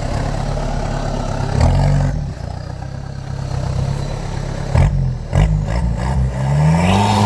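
Off-road 4x4 engine running under load, revving up in short bursts about three times and then in a longer rising rev near the end, with a few clattering knocks from the vehicle.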